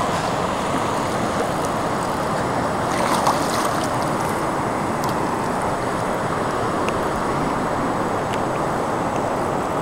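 Steady rushing noise of river water and wind around a float tube, with a few faint ticks.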